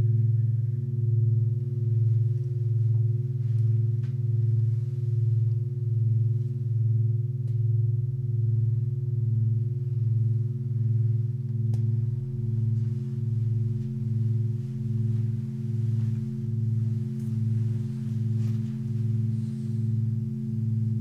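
Meditation music: a deep, sustained ringing drone that pulses slowly and evenly, about once a second.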